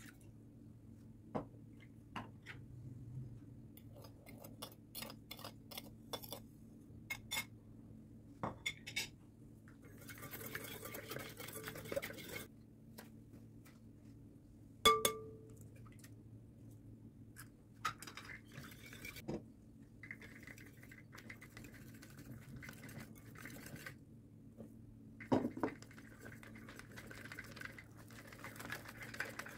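A spoon and ingredients clinking and scraping in a glass mixing bowl as bun dough is put together. There are scattered light clicks, one sharp ringing clink about halfway through, and stretches of stirring and scraping, with a faint steady hum underneath.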